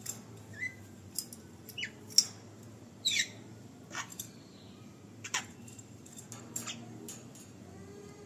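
Javan myna giving a series of short, sharp chipping calls and quick downward-sliding whistles, about a dozen in all, irregularly spaced.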